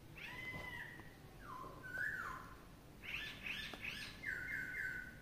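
A bird whistling and chirping: short whistled notes that step up and slide down in pitch, a quick run of three chirps about three seconds in, and three repeated notes near the end.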